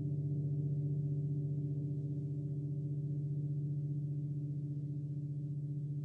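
A 31-inch Chinese white gong ringing on after a strike: a steady low hum with a fine even pulsing, fading very slowly.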